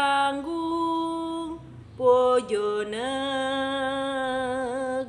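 A woman singing Javanese tembang macapat solo and unaccompanied, a bawa in Asmaradana slendro sanga: long held notes, with a short break about two seconds in and a wavering turn near the end of the last note.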